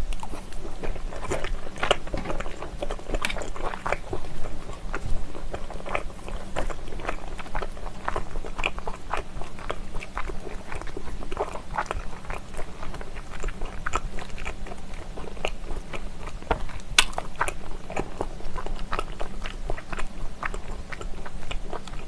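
Close-miked chewing of sauced stir-fried pork skin (dwaeji-kkeopdegi): a steady run of small, irregular mouth clicks and smacks as the chewy skin is worked between the teeth, with one sharper click a little past the middle.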